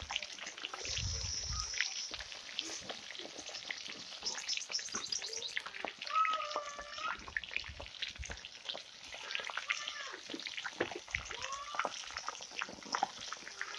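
Fish and prawns deep-frying in hot oil, a steady crackling sizzle. A cat meows several times from about six seconds in, long wavering calls.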